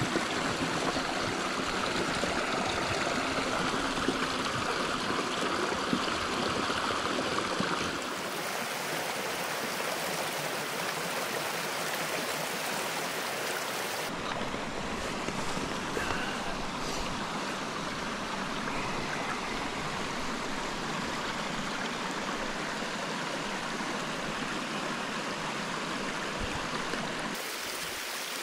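Running water of a small stream, a steady rushing wash with no speech, changing abruptly in tone about 8 and 14 seconds in and again near the end.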